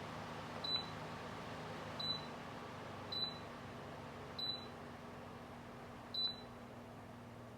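Dreo tower fan's control panel giving five short high beeps a second or so apart as its buttons are pressed, over the fan's steady running hum.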